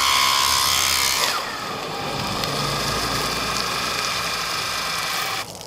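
775 DC motor driving a 3D-printed external gear pump as it pumps water from a bucket, running with a steady high whine. The whine drops slightly after about a second and stops shortly before the end.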